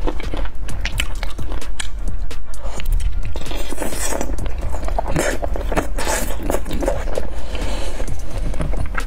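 Close-miked eating: wet biting, chewing and lip smacking on sauce-coated braised chicken feet, with many short sharp clicks, over background music.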